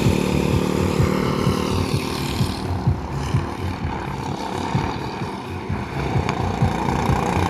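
Go-kart engines running on a track. A nearby kart's engine fades away over the first few seconds, and engine sound builds again near the end.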